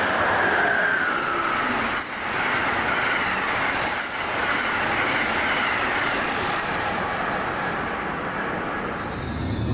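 Amtrak Northeast Regional train passing on the Northeast Corridor: a loud, steady rush of wheels on rail, with a high whine that slides down in pitch during the first couple of seconds.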